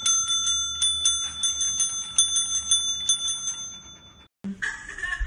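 A counter service bell, struck over and over by a dog's paw, rings in quick repeated dings, several a second, and stops about four seconds in.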